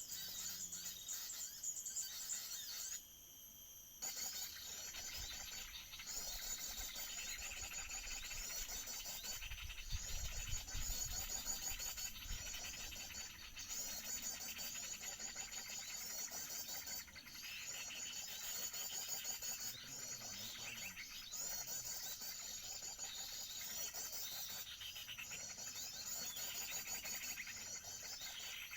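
Small birds chirping and trilling in dense, high-pitched phrases that repeat with short breaks every few seconds. A low rumble is heard about ten seconds in.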